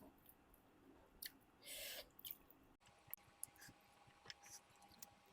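Faint eating sounds: soft chewing and small mouth clicks, with a brief hiss just under two seconds in.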